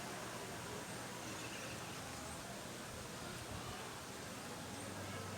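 Steady outdoor background noise: an even hiss with a faint low hum underneath and no distinct event.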